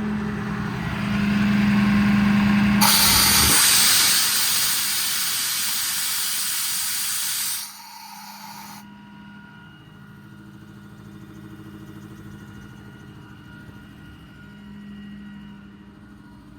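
Compressed air hissing loudly for about five seconds over a steady machine hum, then cutting off suddenly, leaving the quieter hum of the running truck.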